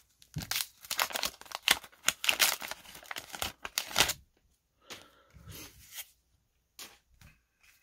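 Paper wrapper of a repacked baseball-card pack being torn open and crinkled by hand: a run of ripping from about half a second in to about four seconds, then softer, scattered rustling as the cards come out.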